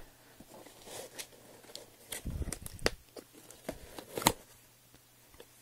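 A mailed cardboard box being opened by hand: scattered clicks, scrapes and rustling of packaging. A cluster of low thumps comes about two seconds in, and a sharp knock about four seconds in.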